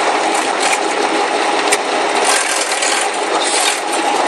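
Airliner cabin noise: the jet engines and air rushing through the cabin in a steady loud roar with a steady hum under it, and one sharp click a little under two seconds in.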